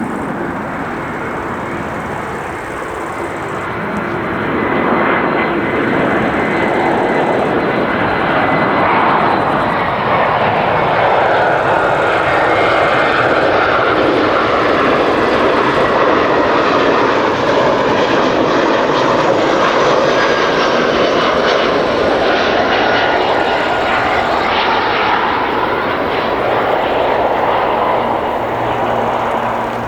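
Airbus A320-200 twin-engine jet airliner coming in to land and passing close by, its turbofan engines making a loud, steady jet noise. The noise swells about four seconds in, holds with a slowly sweeping, phasing quality as the aircraft passes, and eases slightly near the end.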